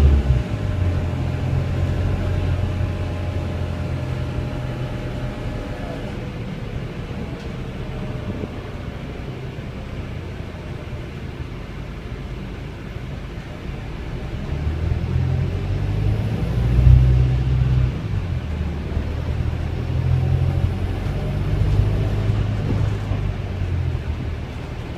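Volvo B5LH hybrid double-decker bus heard from inside the lower deck: its four-cylinder diesel engine drones low and steady for the first few seconds and falls away at about six seconds, leaving quieter running noise with a faint gliding whine. The diesel comes back in at about fourteen seconds and drones on until near the end.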